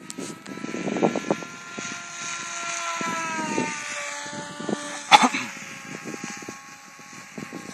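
Electric motor and propeller of a radio-controlled model plane whining overhead, the pitch drifting slowly down and up as it flies. There is low rumbling noise on the microphone and one sharp click about five seconds in.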